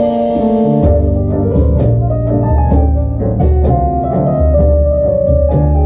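Small tango band playing live: accordion, violin, double bass, keyboards and drums, with a strong bass line, a held melody line and a steady beat.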